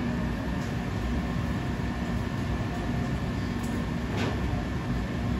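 Steady drone of a commercial kitchen's ventilation: a low rumble with a faint steady hum. One faint tick about four seconds in.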